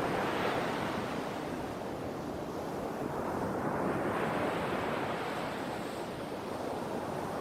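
Sea waves washing in and out, a continuous surf noise that swells near the start, eases off around three seconds in, and builds again with the next wave about four seconds in.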